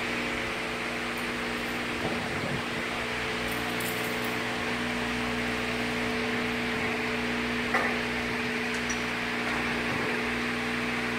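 Steady mechanical hum with a low drone, with a single light knock about two-thirds of the way through as the steel stand legs are handled.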